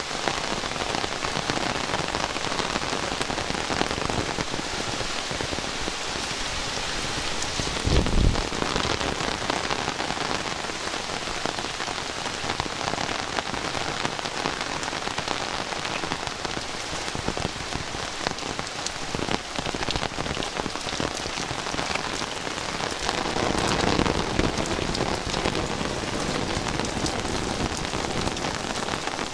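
Heavy rain falling steadily, a dense hiss of drops on surfaces. About eight seconds in there is a brief low thump.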